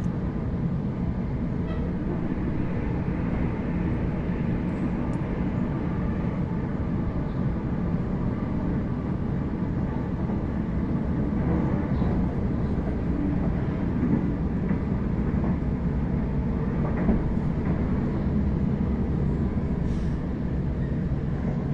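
Cabin noise of a Waratah double-deck electric train running between stations: a steady rumble of wheels on rail with a faint steady hum.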